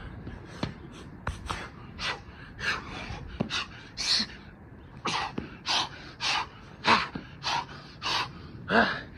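A man panting hard from exertion: a run of short, sharp puffed breaths, roughly one every half second.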